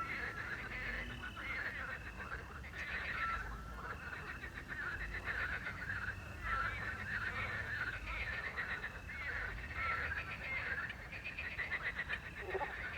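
A dense night chorus of frogs croaking and trilling, with the short whistled note of an owl repeating about every three seconds and crickets chirping behind.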